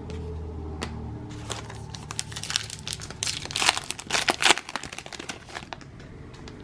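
Plastic wrapper of a trading-card pack being torn open and crinkled, a few seconds of dense, irregular crackling that is loudest near the middle.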